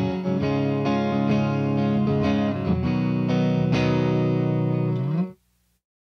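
Electric guitar on its neck pickup, its volume rolled back to about 3.5, played through a Satellite tube amp with a JJ 12AT7 (ECC81) phase inverter and a miked 2x12 cabinet. Chords ring out in a cleaned-up tone. The playing stops sharply about five seconds in.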